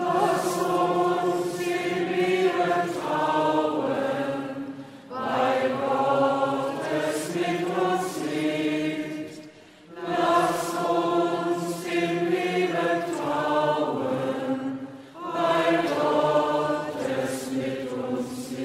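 A choir singing the short chanted response to the intercessions of a Catholic Mass, sung as four phrases with brief breaks between them.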